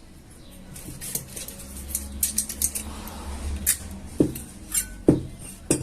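A scattered run of small clicks and light knocks, a few with a short metallic ring, as a new shaft seal is pressed and tapped into a mixer's housing. The heavier knocks come near the end.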